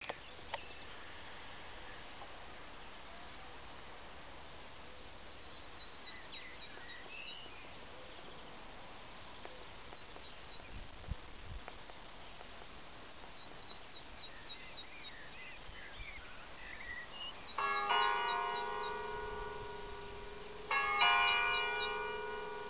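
Birds chirping softly over a quiet outdoor background, then a church bell strikes twice near the end, about three seconds apart, each stroke ringing on and slowly fading.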